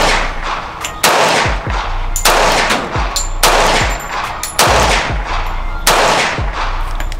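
A .45 ACP 1911 pistol firing Armscor 230-grain full-metal-jacket rounds: six loud shots about a second apart, each trailing off in a long echo. The last shot empties its seven-round magazine.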